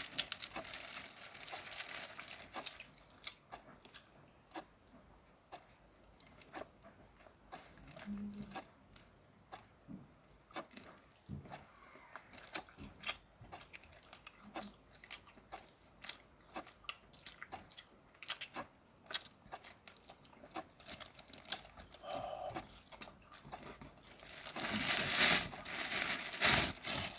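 Close-up eating sounds of steamed shrimp: crunching and chewing with many scattered sharp clicks and crackles, growing into a louder, denser stretch of crackling near the end.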